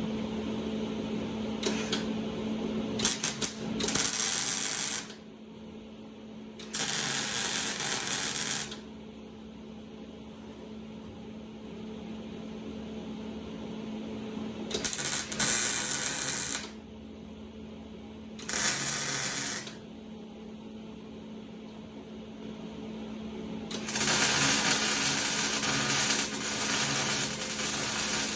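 Welding arc crackling and hissing in short bursts of a second or two as tack welds are laid on a steel transmission crossmember, then one longer weld near the end, over a steady hum.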